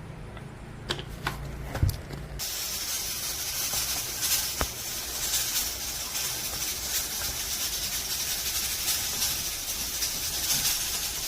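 Steady hiss of perilla leaves cooking in a pot, starting abruptly a couple of seconds in, after a low hum and a few sharp clicks.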